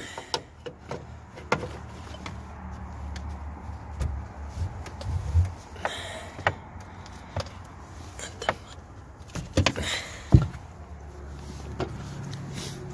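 Ratchet tie-down straps being released and taken off: scattered clicks and knocks from the ratchet buckles and hooks, with the webbing rasping briefly, over a steady low hum. The loudest knock comes about ten seconds in.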